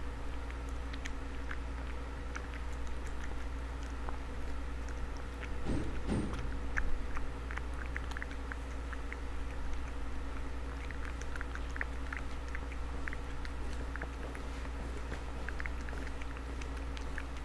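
A cat eating from a bowl: chewing and lapping, many small wet clicks, over a steady low hum. There is a brief louder patch about six seconds in.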